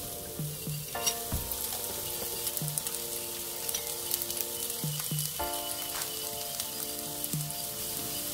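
Cooking oil sizzling in a frying pan, a steady hiss with small crackles. Background music of held chords plays underneath, changing about a second in and again about five seconds in.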